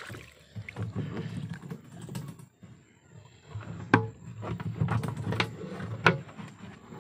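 Handling noise against a plastic container: a low rumbling and rustling, with a sharp knock about four seconds in and two more over the next two seconds.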